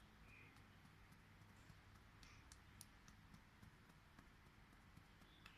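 Near silence with faint, scattered light clicks of fingertips tapping on the head around the ear.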